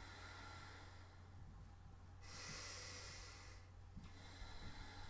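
A person breathing slowly and softly, each breath a faint hiss that swells and fades every second or two, over a steady low hum.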